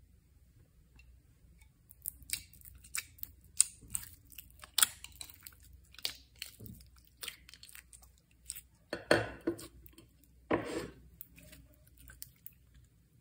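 Slime being kneaded and squished by hand, giving a scatter of sticky clicks and pops, with two longer, louder squelches about nine and ten and a half seconds in.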